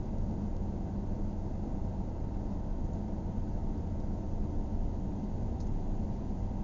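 Steady low road and engine noise of a car driving at low speed, heard inside the closed cabin.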